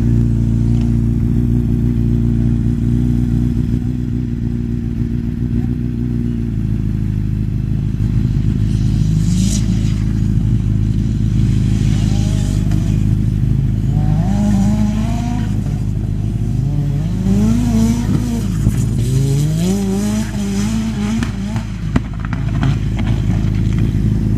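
Autocross buggy's engine running hard on a dirt course: a steady engine note for the first six seconds or so, then from about halfway in, repeated climbs in revs that drop off at each gear change and climb again.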